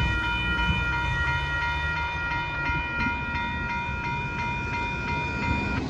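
Railroad grade-crossing warning bell ringing steadily as the gates rise, cutting off shortly before the end, over the low rumble of the freight train moving away.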